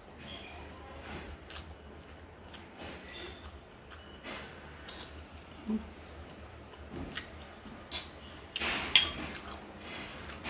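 Spoon clinking and scraping on a plate with chewing: a scatter of small sharp clicks, with a louder cluster about nine seconds in.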